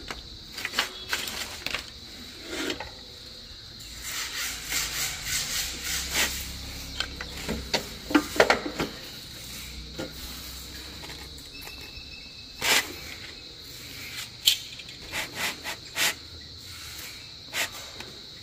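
Small wooden offcuts and a wooden strip being handled and set on a mitre saw's table: scattered light wooden knocks, clatters and rubbing, with the saw switched off. A faint steady high whine sits underneath.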